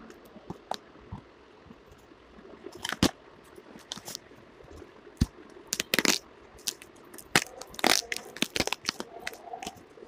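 Plastic packing wrap and tape on a cardboard parcel being cut with scissors and pulled off: irregular crackling and crinkling, sparse at first, then in clusters of sharp crackles through the second half.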